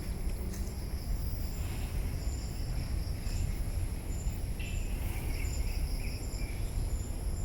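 Insect chorus in vegetation: several steady high-pitched drones with short chirps repeating every half second or so. A continuous low rumble lies underneath.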